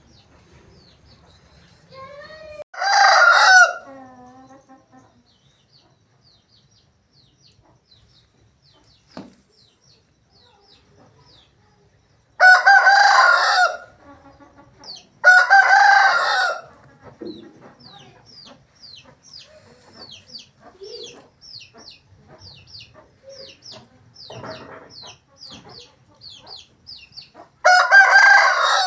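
Asil roosters crowing: four short, loud crows, the first about three seconds in, two close together in the middle and the last at the very end.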